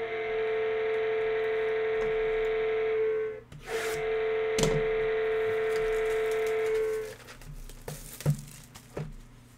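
Electronic goal-light horn sounding two long blasts, each held about three seconds on one steady pitch with a short break between, signalling the start of the break. After it stops, rustling and a few light taps as a cardboard card box is handled.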